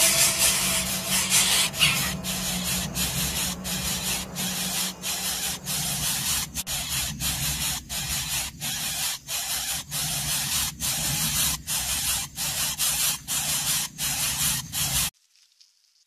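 Loud, harsh hissing broken by short gaps about twice a second, cutting off abruptly near the end.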